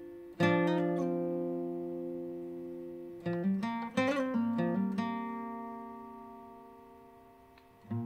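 Steel-string acoustic guitar with a capo, played with a pick: a chord struck about half a second in and left to ring, a quick run of picked notes around the middle, then a chord left to ring out and fade near the end.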